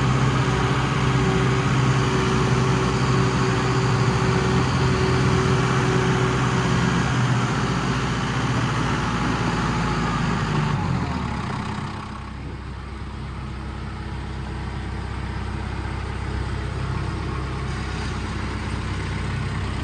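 An engine runs steadily, then slows about eleven seconds in and settles to a lower, quieter idle.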